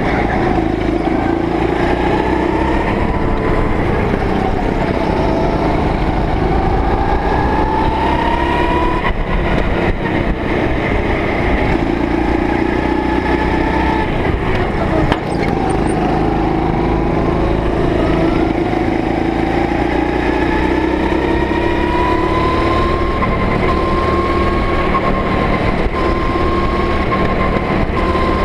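Go-kart engine heard on board, loud, its pitch climbing slowly, dropping back and climbing again several times as the throttle is worked through the corners, over a steady rumble of chassis and track noise.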